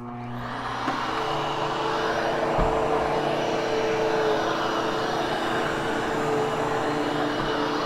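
Hoover Hushtone commercial upright vacuum cleaner switching on, its motor spinning up over about a second, then running steadily with a whooshing hum as it vacuums and grooms a freshly cleaned carpet.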